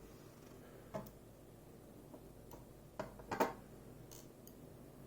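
Light metallic clicks of tiny pins and a ball bearing being handled and lifted out of the pin chambers of a Goal V18 dimple lock. About six irregular ticks, the loudest pair a little past three seconds in.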